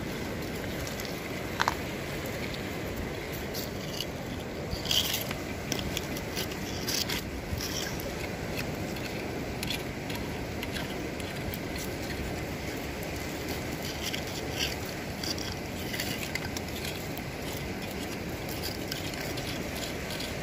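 Steady wash of shallow sea water and wind, with scattered small clicks and scrapes of shells and stones being picked over by hand.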